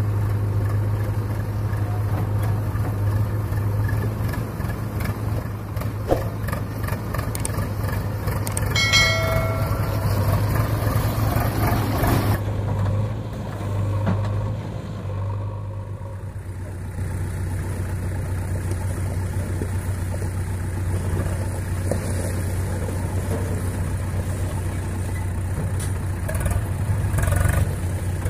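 Swaraj 744FE tractor's diesel engine running steadily under load as it pulls a fully loaded trolley, with a short pitched beep about nine seconds in.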